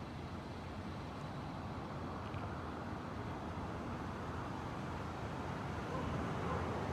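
Steady outdoor background noise with no distinct events, growing a little louder toward the end.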